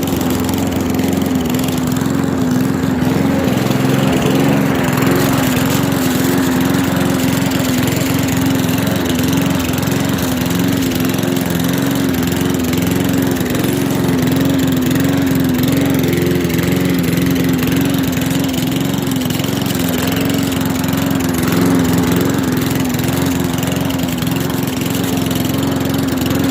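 Small lawn mower engine running at a steady speed, unmodified and stock.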